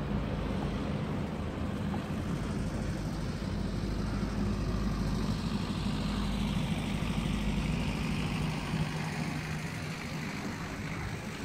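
A motor vehicle's engine running with a steady low hum, over the constant rush of wind on the microphone while cycling.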